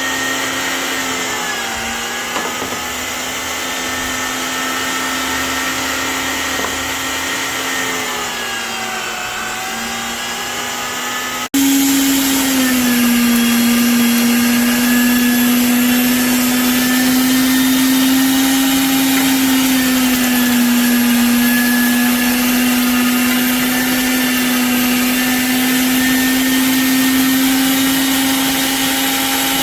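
Electric meat grinder motor running with a steady hum, its pitch sagging briefly a couple of times. A sudden break about eleven seconds in, after which it runs louder, starting a little higher and settling lower.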